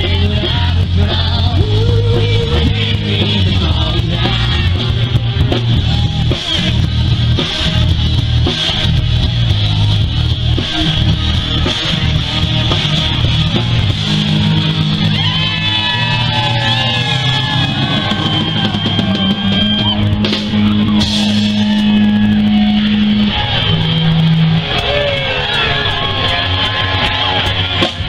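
Live rock band playing: electric bass, drum kit and guitar, loud and continuous, with held, bending notes from about halfway through.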